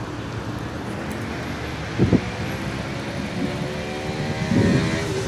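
Road traffic and wind noise heard from a moving bicycle, with a brief thump about two seconds in. A motor vehicle's engine grows louder over the last couple of seconds.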